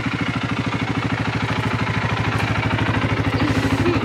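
Rental quad bike (ATV) engine idling steadily, with an even, rapid pulsing beat.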